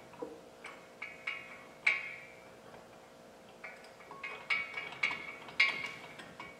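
Irregular sharp metallic clicks and clinks, some ringing briefly: steel mounting hardware and a tool knocking against the winch mount as a bolt is worked into its threads by feel.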